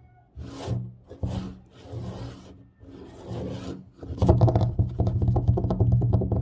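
Scratching on a tabletop in separate strokes, then, about four seconds in, fast and dense tapping and scratching on the table.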